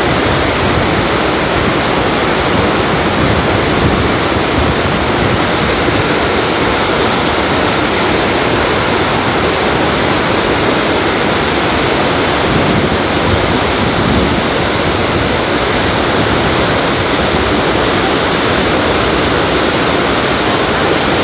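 The Rhine Falls thundering: a large waterfall's steady, loud roar of crashing water, even throughout.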